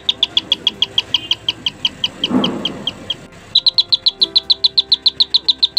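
Cona Parrot electronic calling bell sounding its loud bird-chirp tone, a fast even train of short high chirps, about eight a second, that breaks off briefly a little past the middle and then starts again. The bell's freshly repaired transistor circuit is working.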